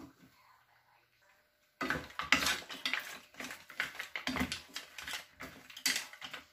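Wooden spatula stirring mussels and shrimp in a frying pan: the shells clack and scrape against each other and the pan in quick, irregular strokes, starting about two seconds in after a near-quiet moment.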